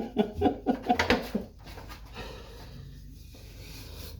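A man laughing: a quick run of voiced 'ha' pulses, about five a second, that stops about a second and a half in, leaving only a quiet steady background.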